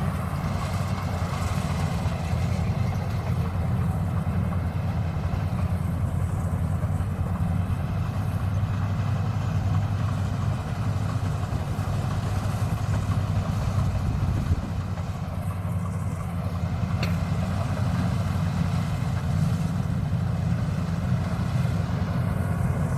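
Bimo combine harvester's engine running steadily.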